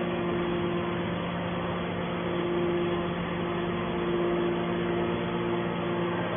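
Hydraulic scrap metal baler running with a steady mechanical drone, its motor and pump humming. A higher tone in the hum fades out and returns a few times.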